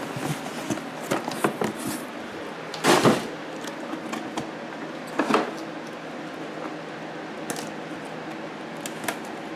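Packaging being handled and opened: scattered clicks, taps and rustles, with two louder rustling scrapes about three seconds and five seconds in.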